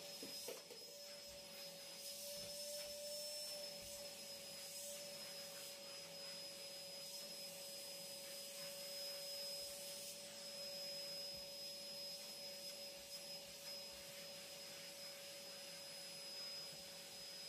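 Vacuum cleaner running steadily, a faint even whine with a few soft knocks near the start.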